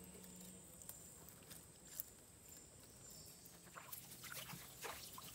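Faint handling of a wet nylon gill net being drawn up into a wooden boat: scattered soft ticks and rustles, with small drips and splashes of water growing busier near the end. A faint steady high whine sits underneath.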